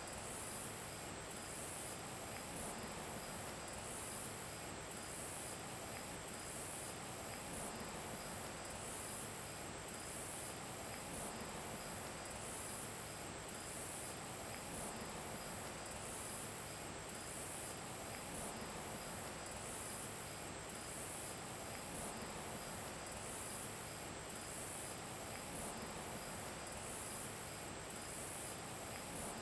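Summer insects chirring in a steady, high-pitched chorus that pulses at an even rhythm.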